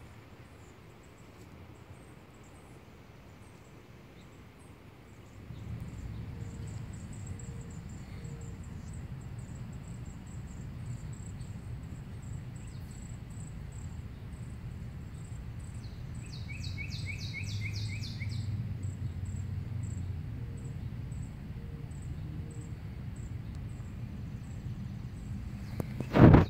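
Outdoor ambience: a faint, steady high-pitched insect chirping with a low rumble that comes in about five seconds in. About two-thirds of the way through, a bird gives a quick series of falling chirps, and a sharp knock sounds right at the end.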